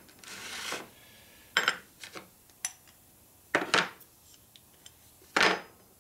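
Steel rocker arm parts clinking and clattering as they are handled and set down on a workbench: a short scrape near the start, then about five separate knocks spread over several seconds.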